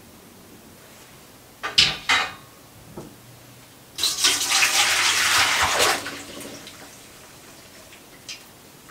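Two short knocks about two seconds in, then water poured into a stainless steel colander in a sink, splashing for about two seconds as wilted spinach is drained.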